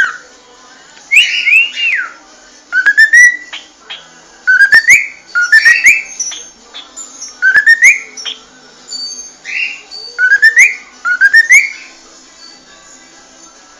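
Cockatiel whistling: short notes that slide upward, given in quick groups of two or three about every second or two, with brief pauses between.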